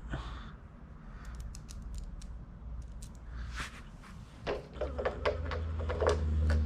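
Small bolts, nuts and washers being handled and fitted to the splitter mounting, heard as a run of light clicks, then a series of knocks about two-thirds of the way in, over a low steady hum.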